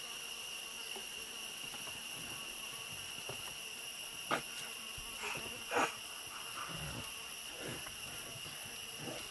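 Forest insects droning steadily at a high pitch, a continuous shrill chorus, with two short calls rising above it about four and six seconds in.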